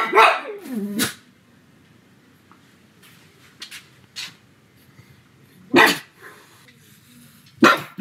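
Pug barking in short loud single barks: one at the start, a brief cry falling in pitch, another bark about a second in, then a bark near six seconds and another at the end.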